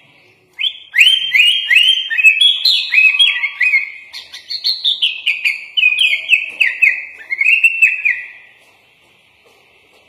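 Sooty-headed bulbul (kutilang) singing a long, fast run of sliding chirped notes, about three a second, that starts about half a second in and breaks off near the end.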